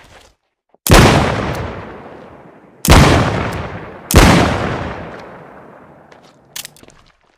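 Smith & Wesson Model 13 revolver fired three times, a second or two apart, each shot ringing out in a long echo. A few light clicks follow near the end.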